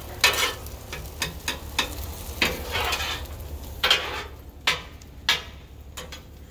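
Metal spatulas scraping and clacking on a flat-top griddle as fried rice sizzles on the hot plate, over a steady low rumble. The clacks come thick for the first few seconds and then thin out to a few strokes near the end.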